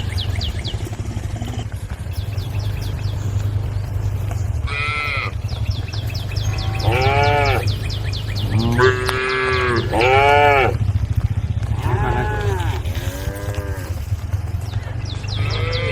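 Several cattle mooing, about half a dozen calls that rise and fall in pitch, some overlapping in the middle. A fast high-pitched ticking and a steady low rumble run underneath.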